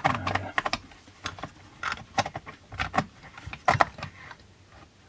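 Chainsaw chain and guide bar being fitted onto the saw by hand, with irregular metallic clicks and clatter as the chain links are worked around the clutch. The loudest knock comes a little under four seconds in.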